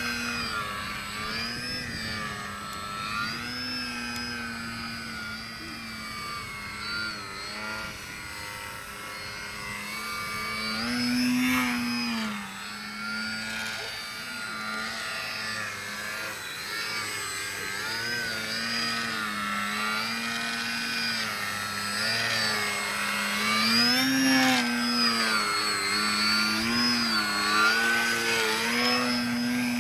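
Radio-controlled aerobatic airplane's motor and propeller whining overhead, the pitch rising and falling with the throttle. It swells louder and higher about eleven seconds in and again near twenty-four seconds.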